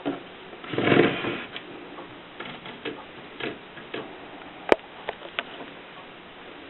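Torpedo manual typewriter in use: a longer rasping mechanical sound about a second in, then a handful of sharp key strikes at irregular spacing, the loudest near the end.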